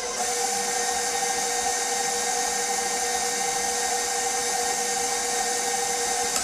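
Electric kitchen mixer running steadily at one speed while beating batter in a bowl, its motor giving an even whine.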